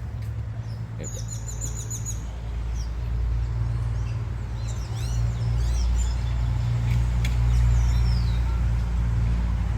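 Birds chirping: a quick run of repeated high chirps about a second in, then scattered chirps later, over a steady low rumble that grows louder.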